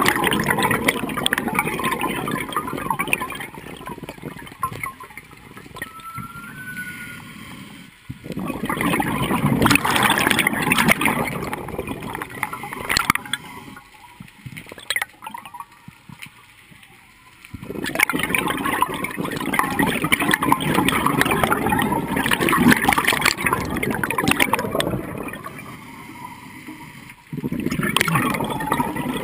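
Scuba diver breathing through a regulator underwater: long stretches of bubbling exhaust bubbles a few seconds each, separated by quieter pauses while breathing in.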